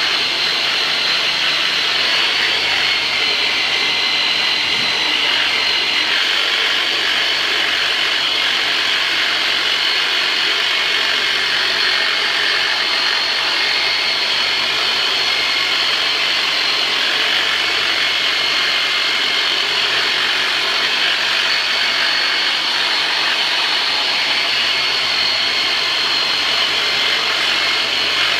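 Handheld electric vibration massager running steadily against the strained lower-back muscles, a continuous high-pitched motor whine that holds an even pitch throughout.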